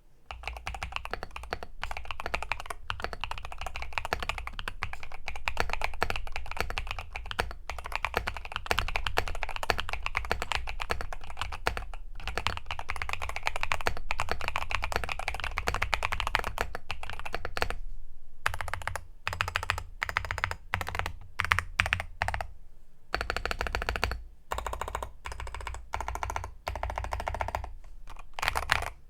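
Modded EPOMAKER Shadow-X mechanical keyboard with Bluebird linear switches and SA-like profile keycaps being typed on: fast, continuous keystrokes, then a short pause about two-thirds of the way in, followed by slower bursts of keystrokes with brief gaps.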